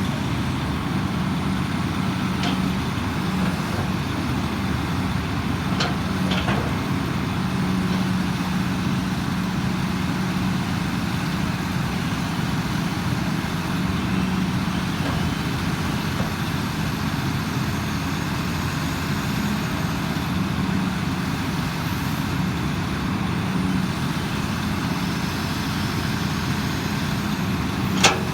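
Hydraulic excavator's diesel engine running steadily, with a few sharp metallic clanks, the loudest near the end.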